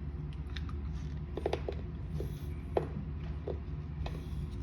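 A person chewing a thick candy chewable, with scattered soft mouth clicks and smacks over a steady low hum.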